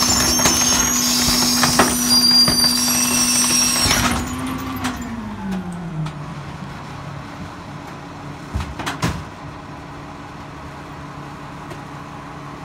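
A 2011 New Way King Cobra rear-loader garbage truck running its packer cycle: the engine holds at raised revs with a high hydraulic whine for about four seconds, then the revs fall away to idle as the cycle finishes. A couple of sharp metal clanks come near the end.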